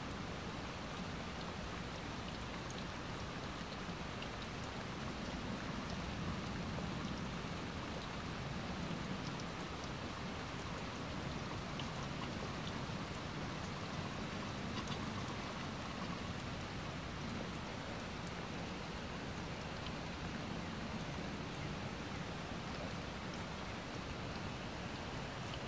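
Steady rain, an even hiss with scattered drops ticking.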